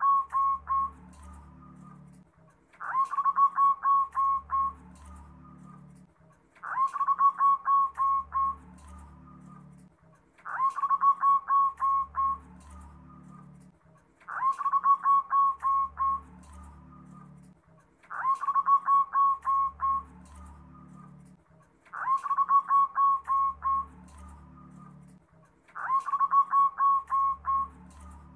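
Zebra dove (perkutut) singing its song over and over, one phrase about every four seconds: a short rising note, then a quick run of six or seven clipped coo notes, with a lower murmur beneath the end of each phrase.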